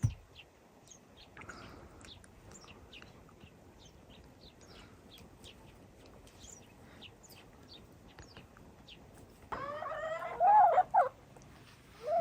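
Small birds chirping in quick, short, high notes throughout, with a louder, wavering call lasting about a second and a half near the end.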